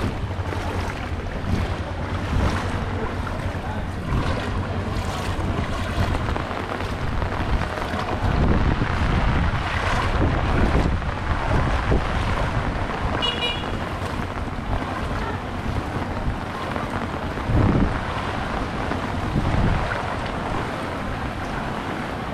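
Footsteps wading through flood water on a street, each step sloshing, over a steady hiss of rain on the water and wind buffeting the microphone.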